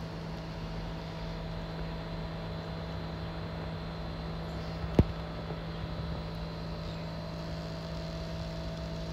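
Steady mechanical hum and hiss, with one sharp click about five seconds in.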